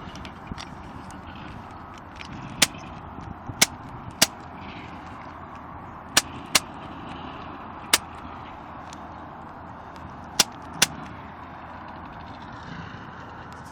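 Skid steer running steadily at a distance while clearing trees, with eight sharp, loud cracks scattered through it.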